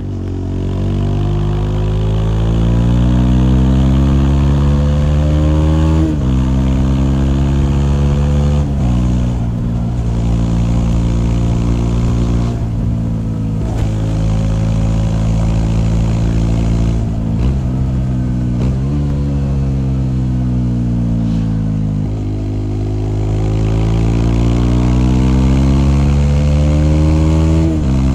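Bajaj Dominar 400's single-cylinder engine accelerating through the gears: its pitch climbs and drops sharply at each upshift, several times. About two thirds through, the pitch falls as the bike slows, then climbs again under throttle.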